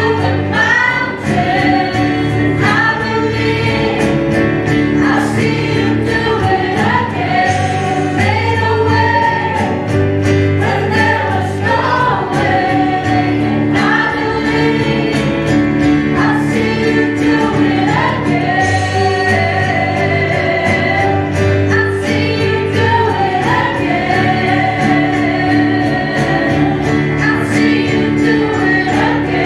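Worship band performing live: a group of men and women singing together into microphones over keyboard, guitar and a steady beat.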